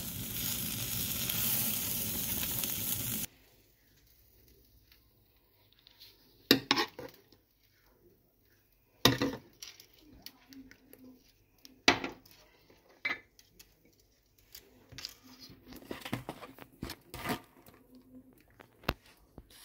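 Steady sizzling of burgers heating on a hot dry tava (flat iron griddle), cutting off sharply about three seconds in. Then mostly quiet, with a few sharp knocks and soft handling noises as a burger is put together by hand.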